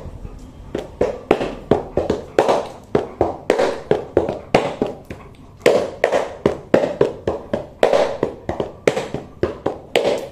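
A pair of shoes slapped together by hand, sole against sole, in a quick uneven drumming rhythm of about three sharp slaps a second.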